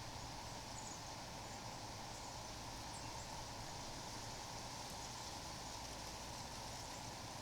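Steady outdoor background hiss in a yard, with a few faint, short, high chirps from distant birds.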